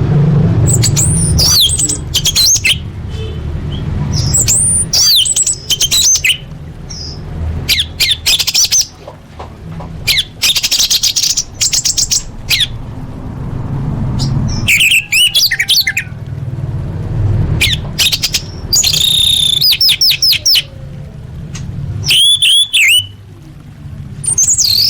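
Orange-headed thrush singing: a varied song of loud whistled phrases with rising and falling sweeps and rapid trills, separated by short pauses. A low steady rumble runs underneath.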